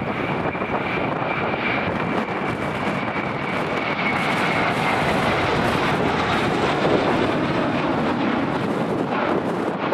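Airliner taking off: a steady engine rumble that swells to its loudest about seven seconds in, with a high whine that slowly drops in pitch over the first few seconds.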